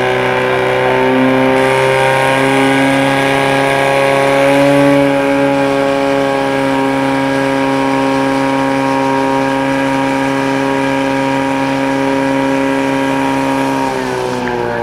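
Portable fire pump engine running flat out, a steady high-revving drone as it drives water through the attack hoses to the jets. Its pitch falls near the end as it is throttled back.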